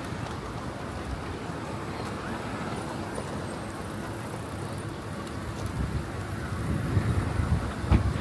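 City street ambience: a steady wash of traffic noise that grows louder near the end.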